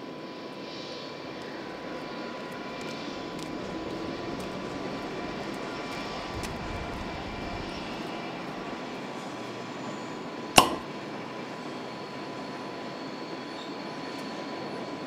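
Electric-hauled Intercity passenger train rolling through curved track and points: a steady rumble of wheels on rails with faint high wheel squeals. One sharp click about ten and a half seconds in is the loudest sound.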